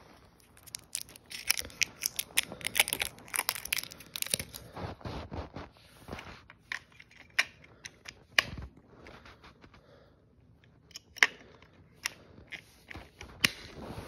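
Plastic battery packaging being crinkled and torn open by hand: a dense flurry of crackles for the first few seconds, then scattered sharp clicks and snaps.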